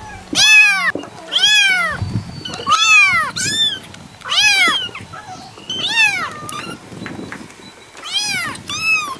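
Kitten meowing repeatedly: about eight short, high-pitched meows, each rising and then falling in pitch, with a gap of about two seconds before the last two.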